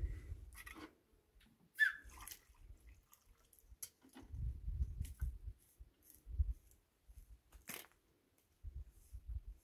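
Faint clicks and crunches of plastic containers being handled on gravel, with low rumbling, and a sharp click about three-quarters of the way through as a small plastic bottle's cap is opened.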